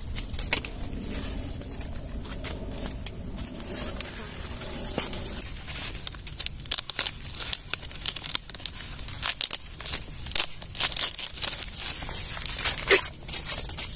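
Young sweet corn ears being picked by hand: the stalks, leaves and husks rustle, crackle and snap as the ears are pulled and broken off. Dense run of sharp snaps and tearing in the second half.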